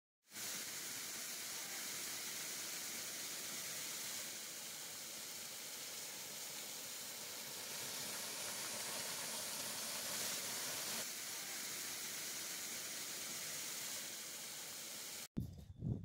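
Small waterfall pouring and splashing onto rock close to the microphone: a steady, high rushing of water. It stops abruptly near the end.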